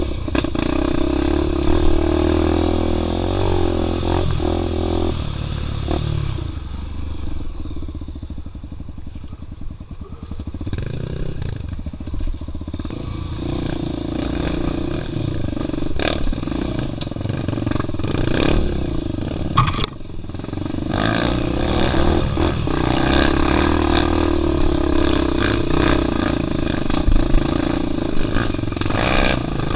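Single-cylinder four-stroke engine of a Honda Tornado dirt bike with a 293 cc big-bore kit, running and revving on and off as the bike is ridden on a rough trail. The engine settles lower and quieter for a few seconds about a third of the way in. Several sharp knocks come from the bike over the ground.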